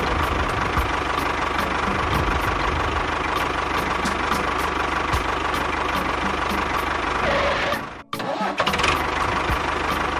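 A tractor engine running steadily with a regular knock about three or four times a second. It cuts out briefly about eight seconds in and then carries on.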